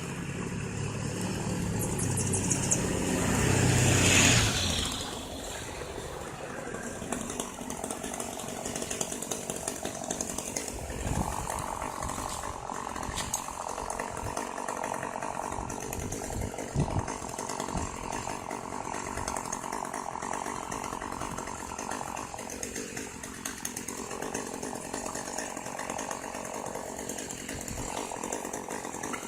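Chainsaw running, rising in pitch and level to a peak about four seconds in, then dropping away. A fainter, steady engine drone continues after that.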